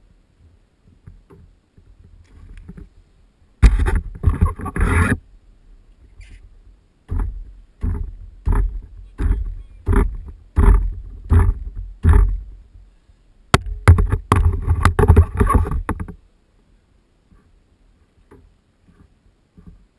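A fish thrashing in a landing net against a kayak's side. It is a burst of splashing and knocking about four seconds in, then about ten separate slaps at roughly two a second, then another long burst of thrashing.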